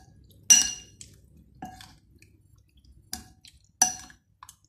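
Metal spoon clinking against a glass mixing bowl while stirring chicken in its marinade: five short ringing clinks at irregular intervals.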